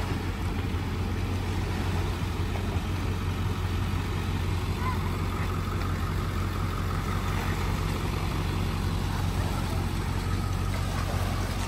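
Pickup truck engine idling steadily with a low, even hum.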